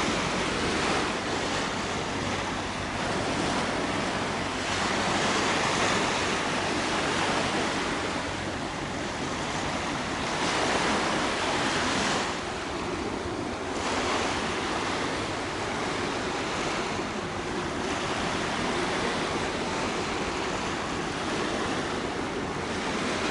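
Steady rush of wind on the microphone over choppy sea water, swelling and easing every few seconds.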